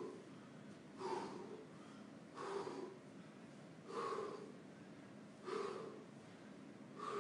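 A man breathing hard from shadowboxing footwork, with a loud, heavy exhale about every second and a half, five in all.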